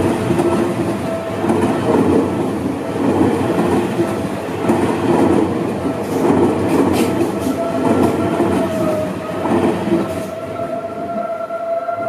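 Seibu Ikebukuro Line electric commuter train passing a level crossing, its wheels beating over the rail joints in a repeating rhythm, while the crossing's warning bell rings steadily. The train noise dies away near the end, leaving the bell.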